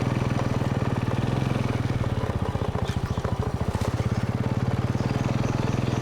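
Small engine running steadily with a fast, even chugging pulse. It starts abruptly and holds an unchanging pitch throughout.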